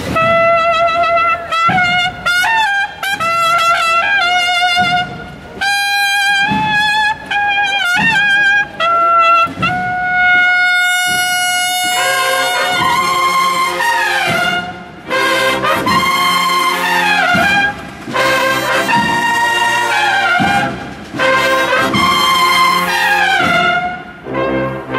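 Brass band music: a single brass instrument plays a solo melody ending on a long held note, then about halfway through several brass instruments come in together, playing repeated falling phrases.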